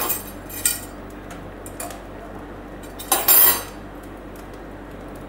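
Metal cookware clinking and clattering: a few sharp clinks at the start, then a louder clatter lasting about half a second some three seconds in, as a steel stand and cake tin knock against a kadhai.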